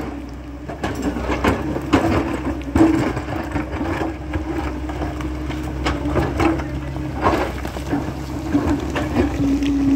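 Tracked excavator's diesel engine and hydraulics running with a steady whine as the bucket works among the rocks, with repeated knocks and clanks through it. Near the end the whine drops slightly in pitch and grows louder.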